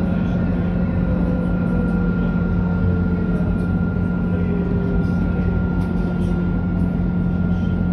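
Interior running noise of an Alstom Citadis tram: a steady rumble with a constant low hum and a thin high tone, and a faint motor whine that falls in pitch midway as the tram slows into a stop.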